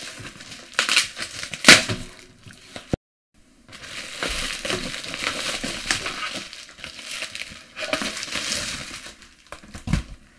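Bubble-wrap packaging crinkling and crackling as it is handled and pulled off a computer power supply, with two sharp loud crackles early on and a low thump near the end.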